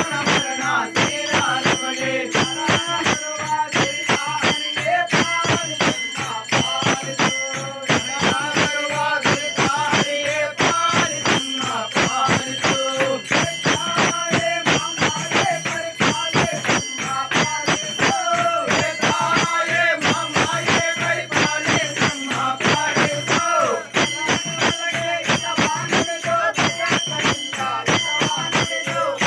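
Devotional ritual music: metal bells rung rapidly and continuously with rhythmic hand clapping, over voices singing a melody.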